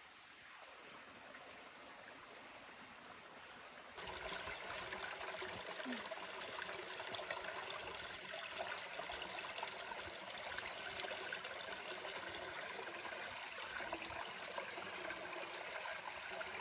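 A steady rush of noise like running water, which steps up to a louder level about four seconds in and then holds steady.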